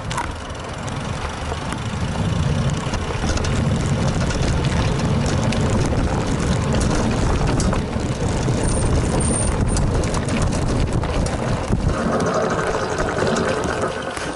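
Trek 920 gravel bike riding over a dirt trail, heard through a handlebar-mounted camera: a steady rumble of tyres on dirt, shot through with constant rattling and knocks.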